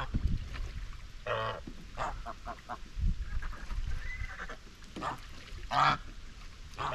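White Chinese geese honking now and then: several separate short, harsh calls, with a quick run of short notes about two seconds in and the longest, loudest call near six seconds in. A brief low rumble about three seconds in.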